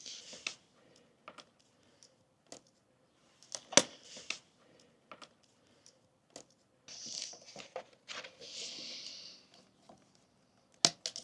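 Thick plastic sticker film being handled and worked by hand: scattered rustles and crinkles with sharp clicks, the loudest click about four seconds in.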